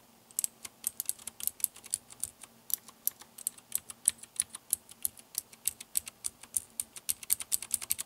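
Typing on Cherry MX Blue clicky mechanical keyboard switches fitted with blue O-rings that shorten the key travel. A quick, irregular run of sharp key clicks that comes faster near the end.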